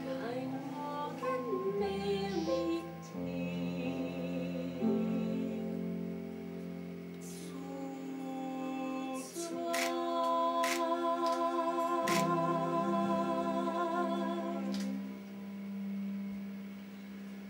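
Musical theatre song: singing over instrumental accompaniment, with long held notes and vibrato, growing quieter near the end.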